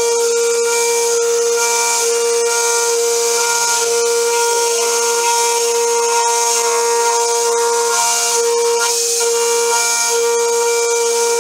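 Home-built CNC router's spindle whining at a steady high speed while a 4 mm end mill cuts a small wheel rim, with the hiss of the coolant nozzle and faint ticking of chips. The whine's overtones waver slightly about a third and three quarters of the way through as the cutter changes direction.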